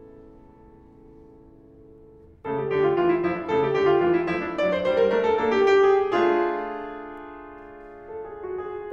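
Solo piano playing classical music: a soft held chord fades, then about two and a half seconds in a sudden loud, fast passage of many notes runs for about four seconds and ends on a ringing chord that dies away, with soft notes coming back near the end.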